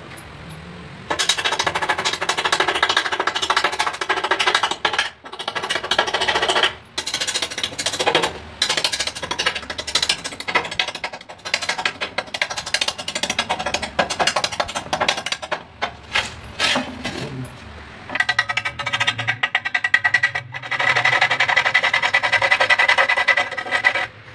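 Music playing, with quick percussive strokes running through it.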